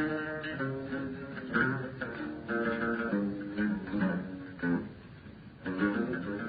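Instrumental interlude of an Arabic song: a plucked string instrument plays a melody of separate notes and dips quieter for a moment about five seconds in. The recording is dull, with no high treble.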